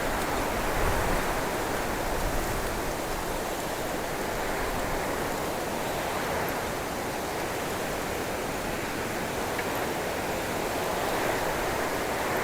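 Steady wind rushing through the branches of a cypress bush, swelling a little now and then.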